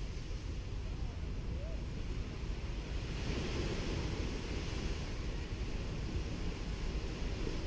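Small waves washing onto a sandy beach, with a low wind rumble on the microphone. The hiss of the wash swells about three seconds in, then eases.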